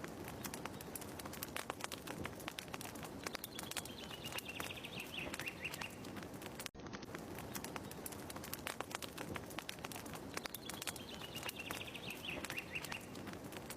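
Fireplace crackling with many sharp pops, and a bird's descending chirping trill heard twice, about seven seconds apart, as the short ambience track loops.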